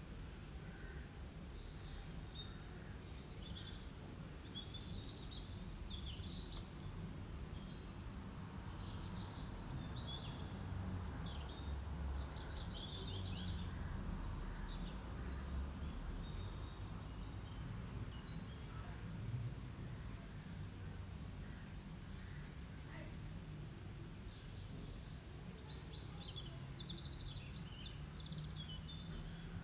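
Birds chirping repeatedly in short, scattered calls over a low steady hum.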